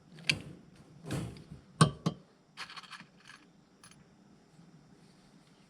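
A series of sharp metallic clicks and clinks, the loudest a little under two seconds in, followed by a lighter rattle around three seconds that then dies away: clip pliers crimping clips onto the wire mesh of a rabbit cage.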